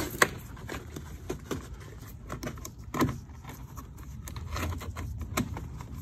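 Scattered clicks, knocks and rubbing as a golf cart's plastic rocker panel and rubber floor mat are worked by hand, the mat being slid under the panel. There is a sharp click just after the start and a louder knock about three seconds in.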